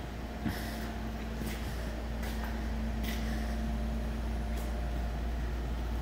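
Steady machine hum with a low rumble, a knock about half a second in and a few light clicks.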